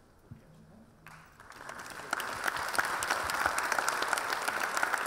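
Audience applauding: the clapping starts about a second in and swells to full strength within another second, then carries on steadily.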